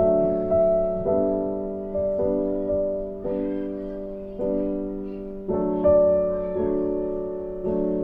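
Background music of slow, sustained chords struck about once a second, each fading away before the next.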